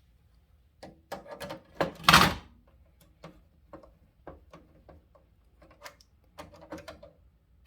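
Small clicks and knocks of hands working at a fire alarm control panel's wiring terminals, beginning about a second in. The loudest moment is a short scraping rustle about two seconds in, followed by scattered light clicks.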